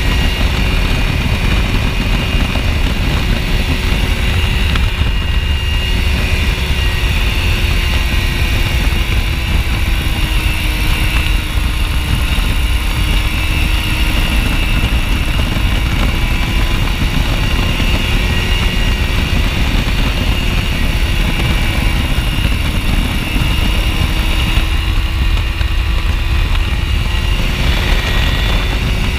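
Open-cockpit ultralight aircraft in cruise: the engine drones steadily, its pitch drifting slightly up and down, under heavy wind rush on the microphone.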